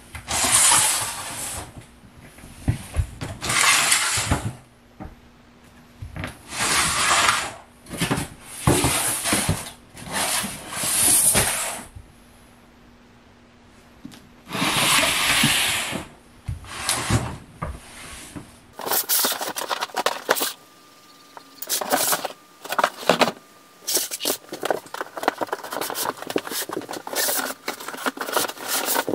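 Plastic storage bins scraping as they are slid out across a hard floor, in bursts of about a second each. Near the end come many short crackles and rustles of cardboard box flaps being handled.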